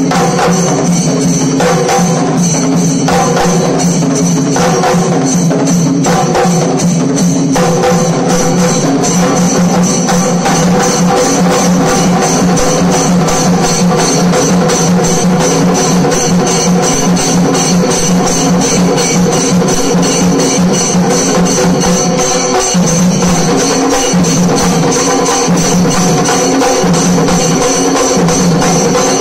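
Kerala chenda melam: a group of chenda drums beaten with sticks in a loud, fast, continuous rhythm, the strokes more distinct for the first several seconds and then running together into a dense roll.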